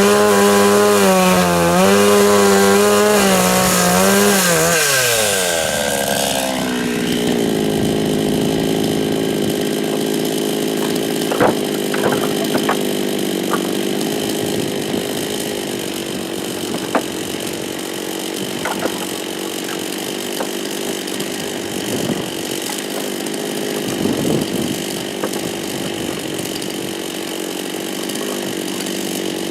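52cc two-stroke chainsaw cutting willow logs at high revs, its pitch wavering under load. About five seconds in, the revs fall away. It then runs on at a steadier, quieter note, with a few sharp knocks of wood here and there.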